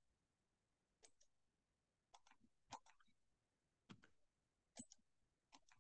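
Faint keystrokes on a computer keyboard, a few keys at a time in short irregular clusters about once a second.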